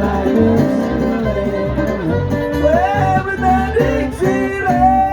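Bluegrass band playing an instrumental break: fiddle sliding through its melody over guitar and a steady bass beat.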